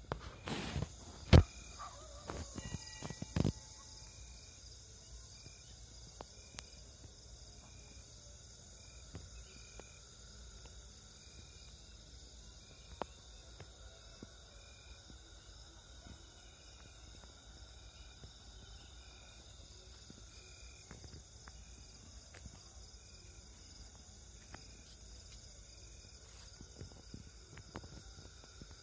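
Night insect chorus: a steady high-pitched trilling of crickets, with a short chirp repeating about every three-quarters of a second through much of it. A few sharp knocks and rustles in the first few seconds.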